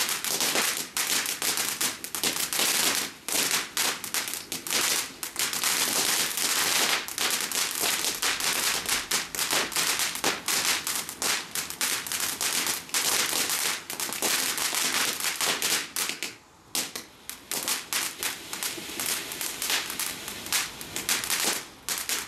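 Ground fountain fireworks crackling densely: a fast, unbroken run of sharp pops over a spray of sparks, with a brief lull about sixteen seconds in.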